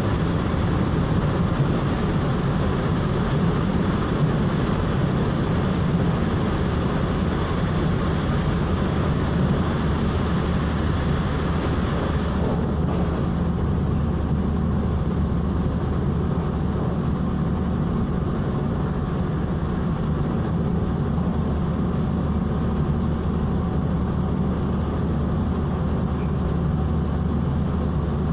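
Interior running noise of a Taiwan Railways EMU700 electric multiple unit at speed: a steady, low rumble of wheels on rail and running gear. About twelve seconds in, the harsher upper part of the noise drops away as the train leaves a tunnel.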